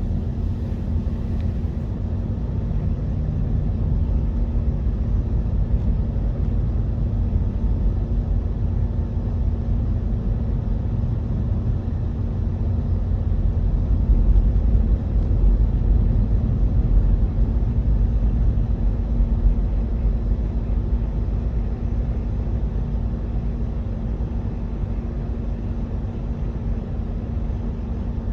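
KTX-EUM electric train running: a steady low rumble with a constant hum over it, growing a little louder around the middle.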